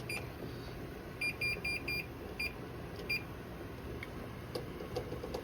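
Digital timer beeping as it is set for eight minutes. A quick run of four short high beeps comes about a second in, followed by two more single beeps, at uneven spacing like button presses.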